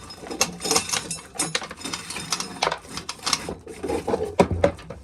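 Corn being shelled, with dried kernels clattering and rattling in a rapid, irregular run of sharp clicks.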